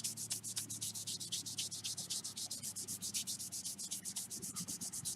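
Wet 3000-grit sanding pad rubbed back and forth over the clear coat of a model car body, in quick even strokes of about eight a second.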